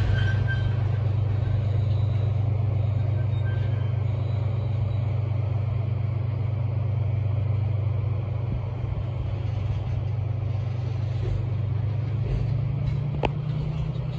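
JR Freight DF200 diesel-electric locomotive running at a standstill with a steady low hum, its pitch rising slightly near the end. A single sharp click about thirteen seconds in.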